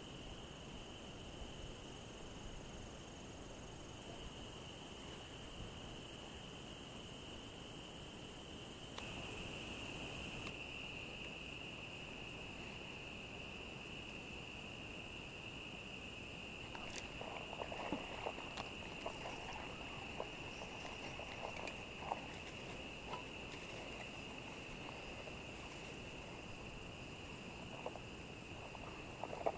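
Crickets and other insects calling steadily in an evening chorus, a high, even drone. Faint clicks and rustles come and go in the second half.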